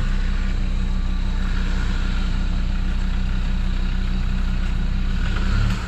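Off-road 4x4's engine idling, a steady low drone.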